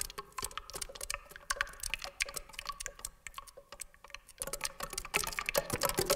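Saxophone keys and pads clicking in an irregular patter, with a few faint short tones, heard from inside the instrument's bell. The clicking thins out midway, then grows denser and louder near the end.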